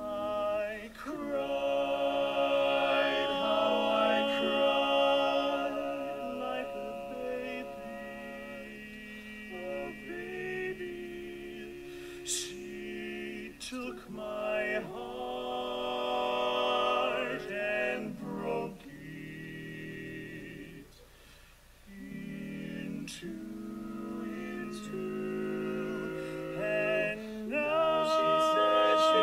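Barbershop quartet singing a cappella in close four-part harmony, the voices sustaining and moving through ringing chords. They drop to a brief hush about two-thirds of the way through, then swell to a loud held chord near the end.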